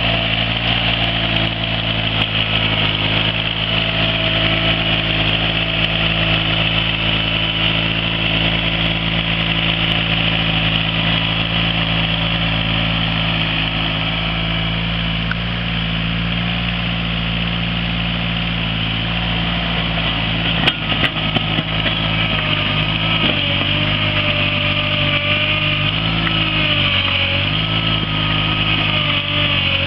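Small motor grader's engine running steadily as the blade pushes dirt. Its pitch wavers up and down in the last third, and a few sharp knocks sound about two-thirds through.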